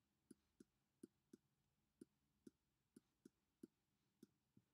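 Near silence with about a dozen faint, short clicks at uneven spacing: a stylus tapping and tracing on a drawing tablet while handwriting.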